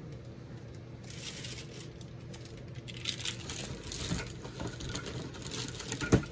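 Trading-card packaging rustling and crinkling as it is handled, busiest about three seconds in, with a single sharp thump just after six seconds.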